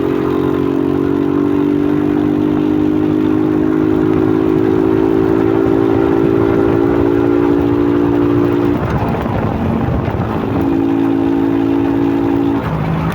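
A loud multi-tone horn blares steadily, cuts off about nine seconds in, then sounds again for about two seconds near the end, over a motorcycle engine running.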